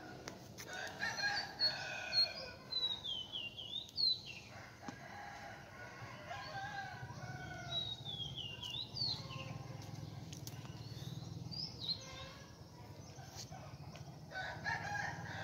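Rooster crowing several times, each crow a long call ending in a falling note.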